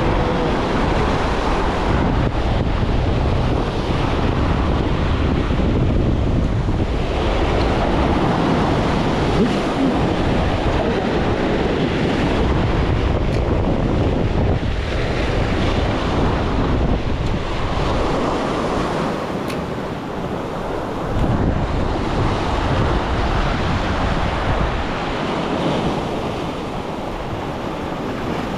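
Wind buffeting the microphone with a low rumble that swells and eases in gusts, over the wash of sea waves.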